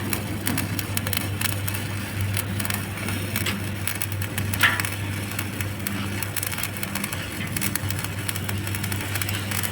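Stick (SMAW) welding arc on 8 mm plate, crackling and sizzling steadily over a low steady hum during a vertical-up capping pass. There is a brief, louder sharp sound about halfway through.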